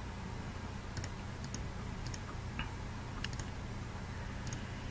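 Computer mouse clicking faintly, about half a dozen clicks, several in quick pairs, as edges are selected on screen. A faint steady low hum lies under them.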